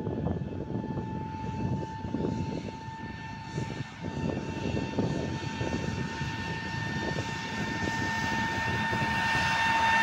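Diesel locomotive hauling a freight train, approaching: a rumbling engine note with a steady high whine, growing louder over the last few seconds as it nears.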